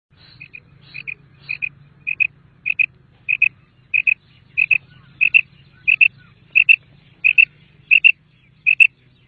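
Common quail calling: a steady series of short, sharp double notes, about one and a half a second, growing louder over the first few seconds.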